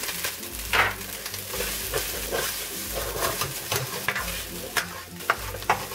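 Cooked rice frying in oil in a hot pan, with a steady sizzle, and a utensil scraping and clacking against the pan many times as the rice is stirred.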